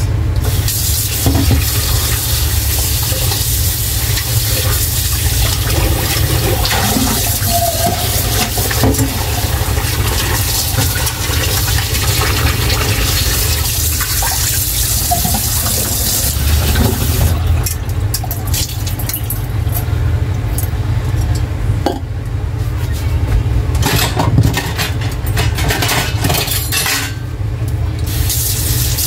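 Running water rinsing green tomatoes, a steady splashing rush. A little past halfway it turns patchy and uneven.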